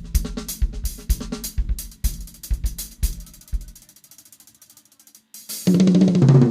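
Drum kit played in a steady beat during a sound check: kick, snare, hi-hat and cymbal, stopping about four seconds in. Near the end a loud, sustained low note comes in.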